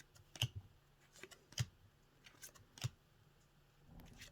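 Trading cards being handled and flipped one by one from a stack: a sharp card snap about every second, three times, with softer paper ticks between.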